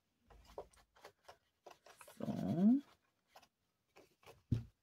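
Foam ink blending tool dabbing and rubbing ink onto card stock: a run of soft scuffs and taps. About two seconds in, a short rising pitched sound, the loudest thing here, and a soft knock near the end.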